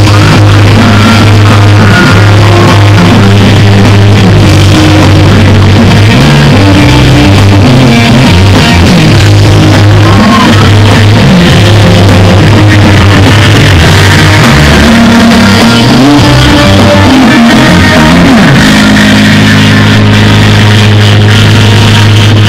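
Live rock music led by an electric guitar, played very loud through PA speakers.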